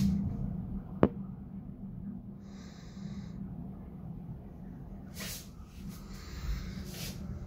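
A heavy thunderstorm: steady low rumble of rain and wind against the window. A single sharp click about a second in, and two short hissing bursts near the end.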